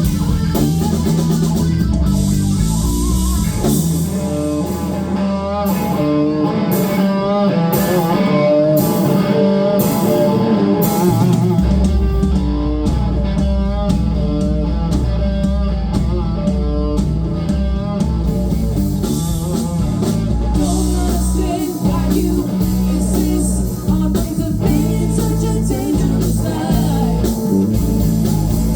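Live blues-rock band playing an instrumental stretch: an electric guitar solo with bent, wavering notes over bass and drums. About four seconds in the bass drops out, and it comes back in hard some eight seconds later.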